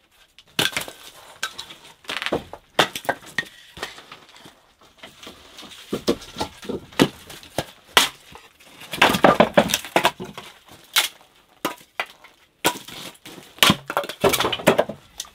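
Split firewood pieces knocking and clacking against each other as they are pulled from a stacked woodpile and tossed down, a string of sharp wooden knocks with a dense flurry about nine seconds in. Near the end a splitting axe strikes a round on a chopping block.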